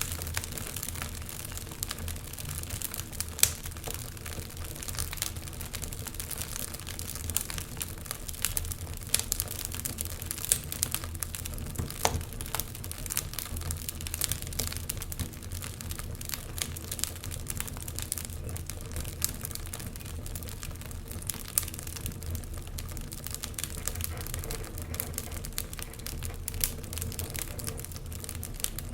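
Wood fire crackling, with irregular sharp pops several times a second and a few louder snaps, over a steady low hum.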